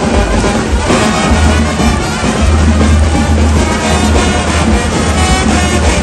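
Loud music with a heavy, steady bass.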